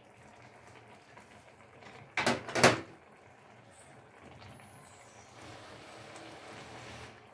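Two sharp knocks about half a second apart, a tin of cooked chickpeas being handled against the metal cooking pan or counter while the chickpeas go onto the rice, over quiet kitchen room noise.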